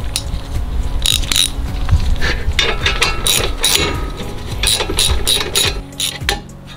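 Hand socket ratchet clicking in quick irregular runs as the brake caliper bolts are run in and tightened, the clicking thinning out near the end.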